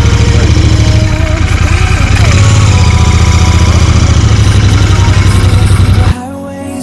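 Vehicle engine running with a steady low rumble, cutting off suddenly about six seconds in.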